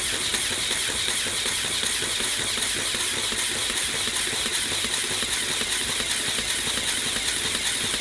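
Lego pneumatic air compressor, Lego pumps driven by two XL motors, running steadily with a fine fast clatter at its lower 9-volt speed while pumping up air pressure.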